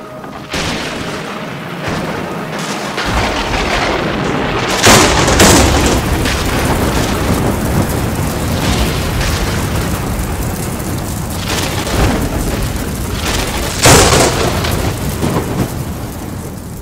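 Dramatic opening-title soundtrack: a dense rumble that swells over the first few seconds, broken by heavy booms about five seconds in and again about fourteen seconds in, like thunder or cinematic impact hits.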